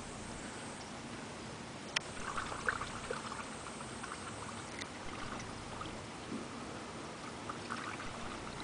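Gentle water trickling and lapping against a boat, with small bursts of trickles about two seconds in and again near the end, and one sharp click about two seconds in.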